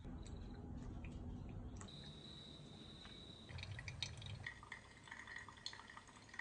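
Coffee brewing, with hot liquid dripping and trickling over a low rumble and small scattered clicks. A faint steady high tone sounds for about a second and a half in the middle.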